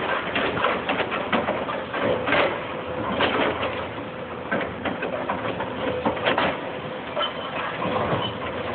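Hydraulic excavator working demolition rubble: a steady engine hum under frequent irregular knocks and clatter of debris.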